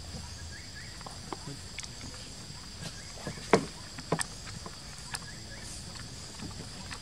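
Macaques clambering on a red plastic toy tricycle: scattered knocks and taps of hands and feet on the hollow plastic, the loudest about three and a half seconds in, over a steady high hum.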